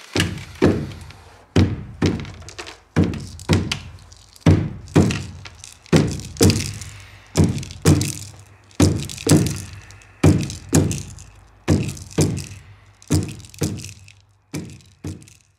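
Hand drums, an octagonal painted hide frame drum struck with a padded beater and a large hide drum, playing a heartbeat rhythm: pairs of strokes about half a second apart, a pair about every second and a half. Each stroke rings and drops in pitch as it fades.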